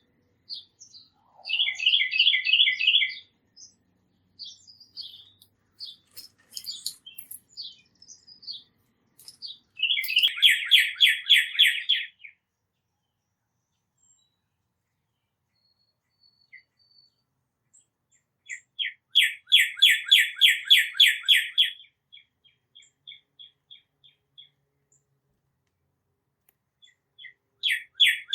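A songbird singing a rapid trill of evenly repeated notes, about seven a second for two to three seconds, repeated every eight or nine seconds. Scattered short chirps come between the trills.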